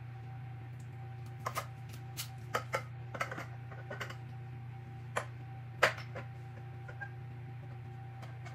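Frame tubes and plastic joints of a Fisher-Price My Little Snugapuppy cradle-and-swing clicking and knocking as the tubes are handled and fitted together. About a dozen short, sharp taps come irregularly, the loudest a little before six seconds in, over a steady low hum.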